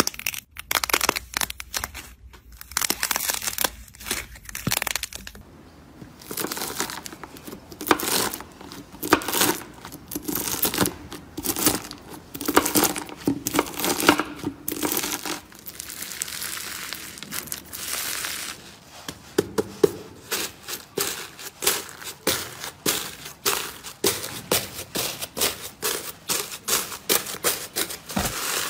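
Slime being squeezed, cut with a knife and pressed by hand, giving dense quick crackling, popping and crunching.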